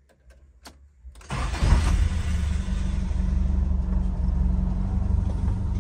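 Toyota Venture's four-cylinder petrol engine started from the driver's seat: a few faint clicks, then about a second in the engine catches with a loud burst and settles into a steady run.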